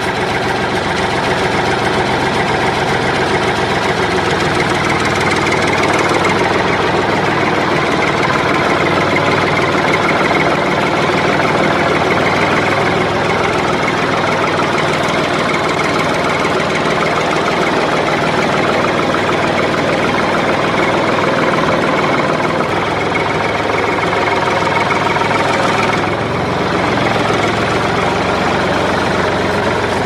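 Simulated tractor engine sound played through the speaker of a remote-control toy tractor, a steady idling and running rumble, its tone shifting slightly a few seconds in and again near the end.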